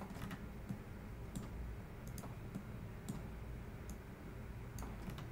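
Faint, scattered clicks of a computer mouse, about a dozen spread irregularly, over a low steady hum.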